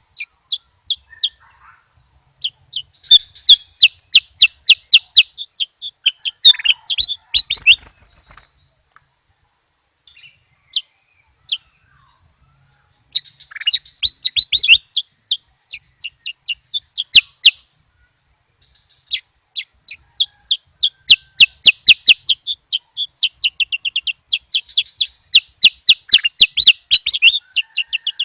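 Bulbul singing in runs of short, sharp chirps, about five a second, with pauses of a few seconds between phrases, over a steady faint high hiss.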